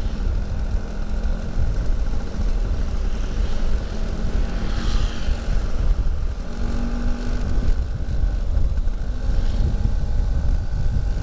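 Vintage Vespa Super 150 two-stroke scooter riding steadily in traffic, its engine running under heavy wind rumble on the helmet-mounted microphone. A brief hiss comes about halfway through.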